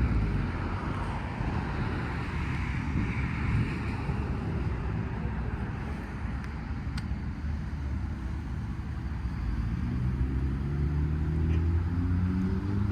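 A car's engine and tyre noise on the road, running steadily, with the engine's pitch climbing over the last few seconds as it speeds up.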